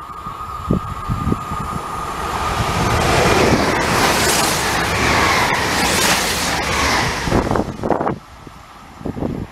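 Two coupled SNCF Z 27500 AGC electric multiple units pass close by at speed. A high steady tone fades as they come in, then the rush of wheels on rail and air builds to a peak about four to six seconds in. A few wheel knocks sound as the last car goes by, and the train noise drops away sharply about eight seconds in. Wind buffets the microphone throughout.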